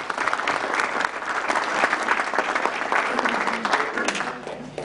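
Audience of a few dozen people applauding, a dense patter of hand claps that dies away near the end.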